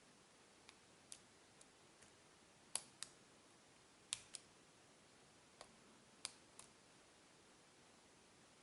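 Faint, scattered clicks of a pick and tension wrench working the pins of a Yale six-pin pin-tumbler cylinder while its core sits in a deep false set. The clicks are irregular, about a dozen, some in close pairs.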